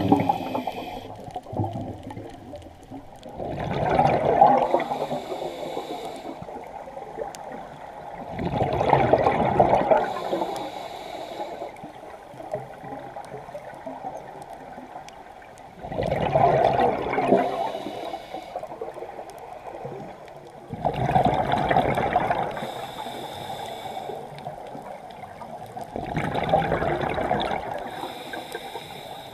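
Scuba diver breathing through a regulator: exhaled bubbles rush out in a loud burst about every five seconds, with a fainter hiss between them, heard through an underwater camera housing.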